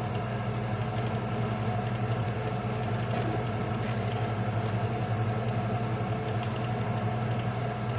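Steady low motor hum, running evenly without a break.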